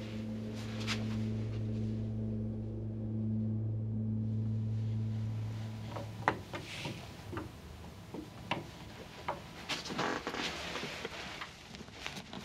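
A low sustained drone of several held pitches, like a bowed gong or singing bowl in a film score, fades out about halfway through. Scattered light clicks, knocks and rustling follow, the first click the sharpest.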